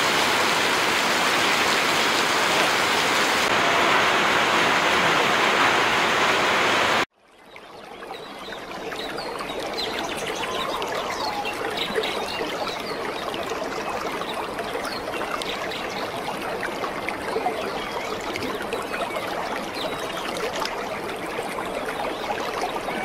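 Rushing water, loud and even, that cuts off abruptly about seven seconds in. After a moment of silence it is followed by quieter flowing water with faint scattered high chirps.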